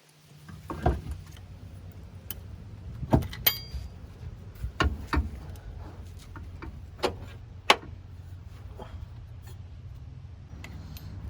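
Irregular metal clinks and knocks as tools and parts are handled while a new rear shock absorber is fitted. One strike rings briefly with a high metallic tone. A steady low hum runs underneath.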